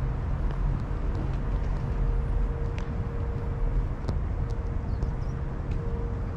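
Steady low rumble of city street traffic, with a faint constant hum and a few light clicks.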